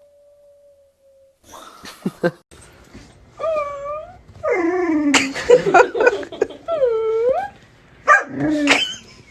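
A dog whimpering and yipping: a run of short pitched cries that dip and rise in pitch, starting about a second and a half in, with a louder, noisier stretch in the middle.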